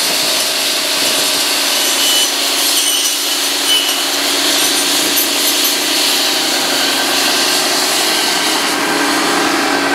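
Tractor-mounted McConnel circular saw blades spinning on the hedge-cutting arm and sawing through branches, a loud, steady whirring that never lets up. The New Holland tractor's engine runs beneath it.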